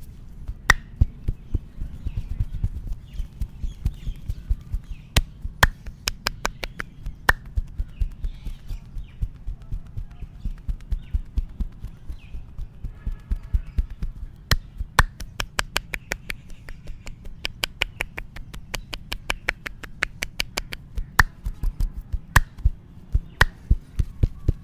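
Hands striking the body in a percussive massage: quick runs of sharp slaps and taps, several a second, broken by short pauses, with a few louder single claps standing out.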